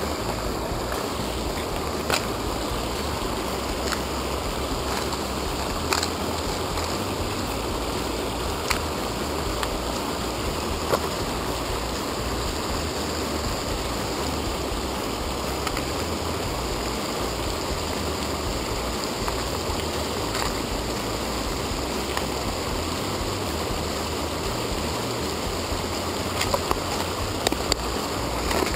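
Mountain river rushing steadily over a small cascade and rocky shallows. A few sharp clicks stand out, from a clear plastic lure box being handled, with several close together near the end.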